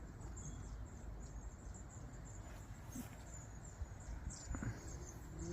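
Quiet outdoor ambience with faint, high-pitched chirping scattered through it.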